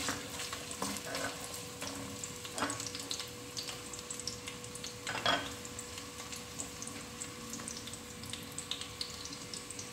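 Sliced ginger and onion sizzling and crackling in hot oil in an aluminium pot. A wooden spatula stirs them at first, and there is one louder knock about five seconds in.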